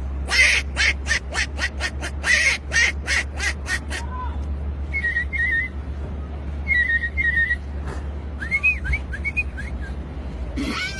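A man imitating animal sounds with his mouth: first a fast run of sharp breathy bursts, then short warbling, bird-like whistles in two groups, followed by a few gliding whistles.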